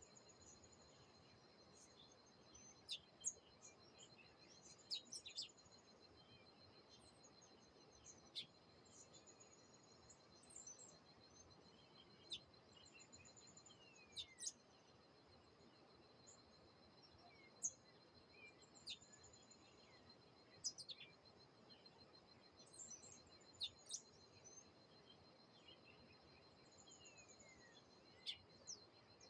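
Wild birds calling, with short sharp chirps and quick downward-sliding whistles scattered every second or two. Underneath runs a steady, finely pulsed high trill.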